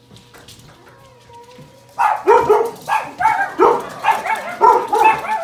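Vizsla–Labrador mix dog yelping and whining in a quick run of loud, high-pitched cries, starting about two seconds in: an excited greeting of its owners.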